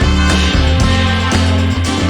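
Background music: a loud, steady track with plucked guitar and a strong bass line.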